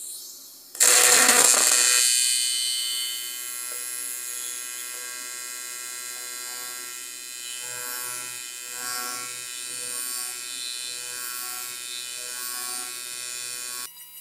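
AC TIG welding arc on aluminum, running at a 125 Hz AC frequency. It strikes with a loud burst about a second in, then settles into a steady buzz that cuts off just before the end.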